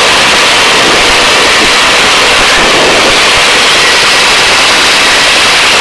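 Hovering search-and-rescue helicopter's engine and rotors heard from aboard at the open door: a loud, steady noise with a faint, steady high whine.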